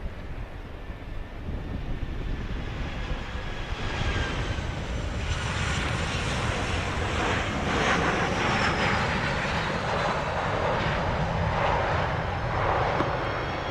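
Jet engines of a Boeing 737-800 airliner on landing approach, a noisy whine that swells from about four seconds in. High whistling tones slide down in pitch as the plane passes.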